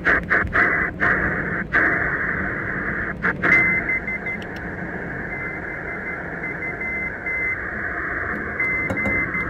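Shortwave receiver in upper sideband on the 20-metre ham band: steady band hiss, broken by brief clicks and dropouts as the tuning knob steps up through the CW segment. From about four seconds in, a weak high Morse code (CW) tone keys on and off in dots and dashes.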